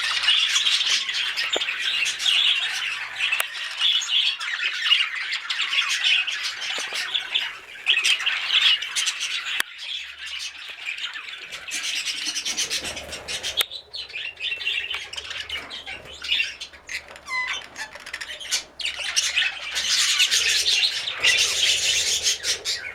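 Budgerigars chattering and squawking, many voices at once. The chatter thins out for a few seconds about halfway through, then fills in again.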